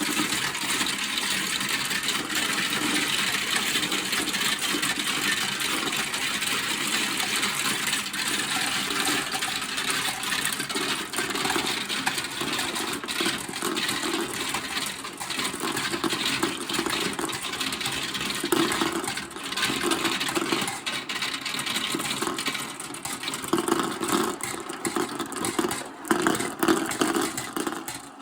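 Many marbles rolling down a plastic Kumi Kumi Slope marble run: a continuous rolling rumble with frequent clicks and clacks as marbles knock against the track and each other, getting busier in the last ten seconds.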